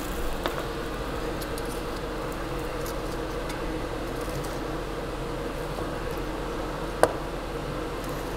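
A steady kitchen hum with a faint hiss. A few light clicks come near the start and one sharp click about seven seconds in.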